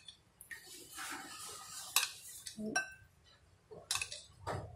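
Metal spoon clinking and scraping against a ceramic bowl while scooping out liquid agar jelly, several sharp clinks with one ringing briefly about halfway through.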